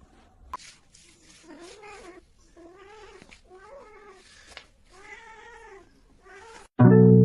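A cat meowing in a string of about five drawn-out calls, each rising and then falling in pitch. Loud plucked-string music cuts in just before the end.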